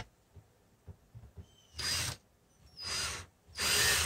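Cordless drill run in three short bursts, about half a second each, in the second half, as a small bit starts a hole through a thin cabinet door.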